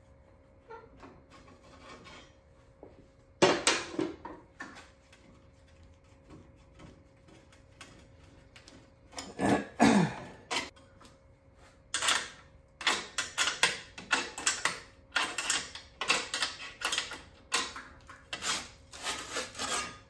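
A sheet-metal repair panel being shaped and test-fitted: irregular knocks and scraping rubs of metal against wood and metal. They are sparse at first, with a louder scrape about ten seconds in, then come in quick succession over the last eight seconds or so.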